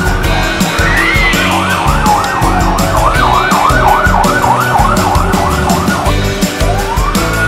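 Emergency-vehicle siren sound effect over background music with a steady beat. A wailing tone gives way, about two seconds in, to a fast up-and-down yelp lasting some four seconds, and near the end a new wail rises.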